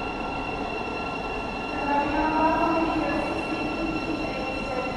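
Thameslink Class 700 electric multiple unit pulling into the platform: a steady rumble, with a whine from the train that comes in and grows louder from about two seconds in as it slows.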